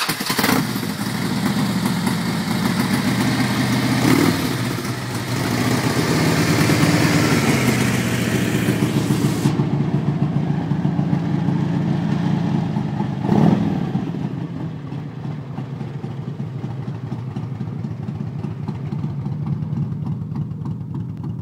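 Harley-Davidson Road King Custom's V-twin engine firing up, then idling with a steady pulsing beat. It is briefly revved about four seconds in and again a little past halfway.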